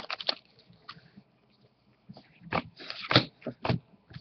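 Trading cards and their packaging being handled: a few brief rustles and clicks, mostly in the second half, with a short quiet stretch before them.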